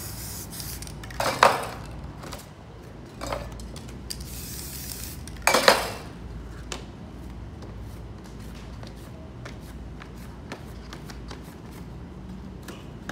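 Spray-paint handling noises: three short, sharp rustling swipes of paper over a painted panel, about a second in, two seconds later and near the halfway mark. A brief spray hiss comes just before the last and loudest one, and small scattered clicks and crackles sound between them.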